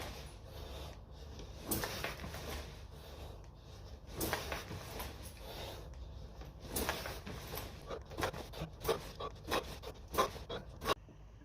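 A man breathing hard while exercising, with irregular scuffs and light taps from his movements.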